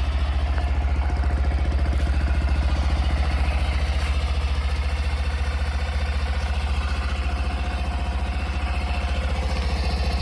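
Honda Monkey 125's single-cylinder four-stroke engine idling steadily with an even, rapid beat of firing pulses, just after a start following winter storage.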